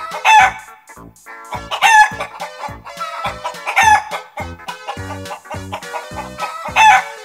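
Four short rooster calls standing out over background music with a steady beat.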